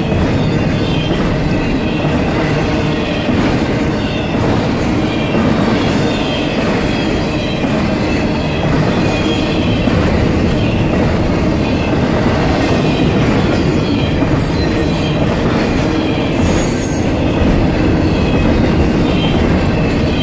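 Double-stack intermodal container cars rolling steadily past at a grade crossing: a continuous rumble and clatter of steel wheels on rail.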